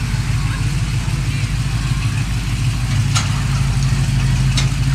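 Old pickup trucks rolling slowly past on a wet road: a steady low engine drone over a hiss of tyres on wet pavement. Two short, sharp clicks come about three seconds and four and a half seconds in.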